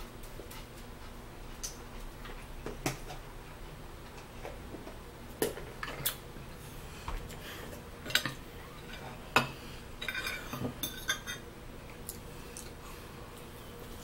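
Cutlery clinking and scraping against a plate as steak is eaten: scattered sharp clinks, with a quick run of them about ten to eleven seconds in.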